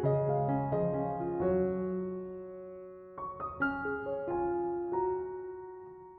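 Background music: a gentle piano melody, notes struck and left to ring and fade.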